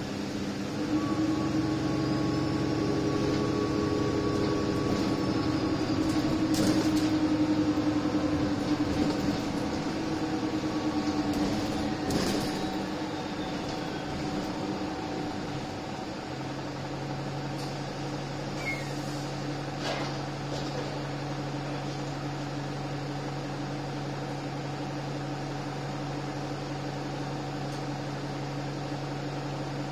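Alexander Dennis Enviro 300 single-deck bus heard from inside the cabin: the diesel engine and drivetrain running on the move with a steady tone, louder from about a second in and easing off after about twelve seconds, then settling to a steady low hum.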